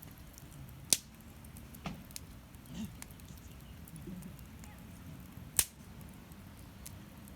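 Wood bonfire burning strongly: a steady low rumble of flames with a few sharp crackling pops, two of them loud, about a second in and a little past the middle.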